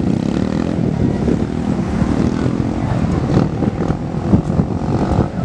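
Boeing 747 jet engines running loud: a deep, steady rumble with a droning hum of tones over it.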